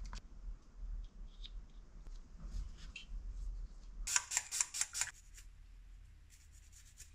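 Light clicks and taps of small brake caliper parts being handled by hand, with a quick run of sharp clicks about four seconds in.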